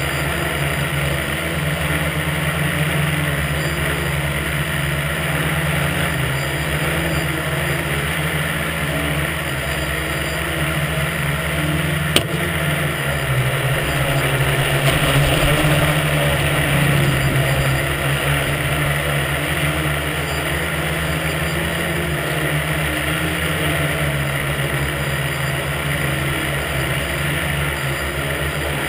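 Tricopter's electric motors and propellers buzzing steadily in flight, heard from the camera mounted on the craft. The buzz swells a little for a few seconds about halfway through, just after a single sharp click.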